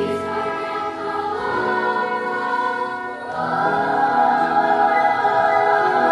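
Choir singing sustained chords, swelling louder about three seconds in.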